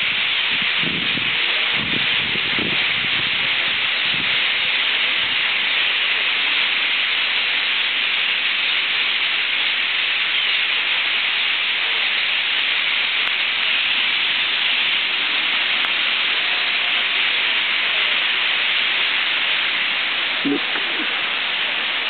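Massed chattering of a huge flock of thousands of European starlings, a steady, dense, high-pitched din with no breaks.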